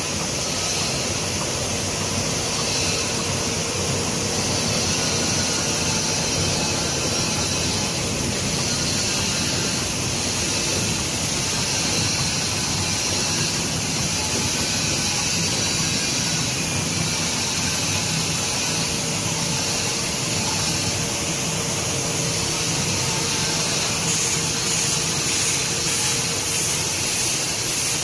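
Automatic cutlery packing machine running, a steady whirring hiss with a faint constant hum, and a light regular clicking in the last few seconds.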